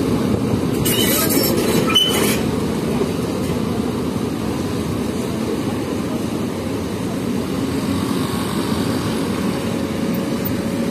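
Steady low rumble of idling motorcycle engines mixed with the rush of a fast river. A brief hissing burst about a second in lasts a little over a second.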